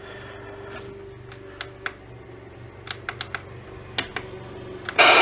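Buttons on a radio's front panel clicking, a scatter of short presses, then about five seconds in a loud burst of static hiss from the radio's speaker as it lands on a channel with no signal.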